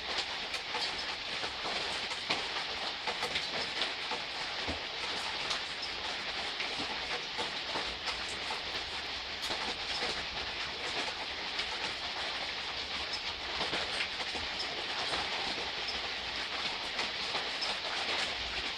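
Gentle, steady rain, a constant hiss sprinkled with many small drop ticks at irregular times.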